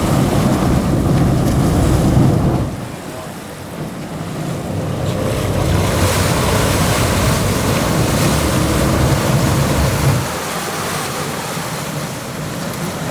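Wind buffeting the microphone and water rushing past a sportfishing boat at sea, with a heavy low rumble that drops away suddenly about two and a half seconds in, builds back, and falls off again near the end.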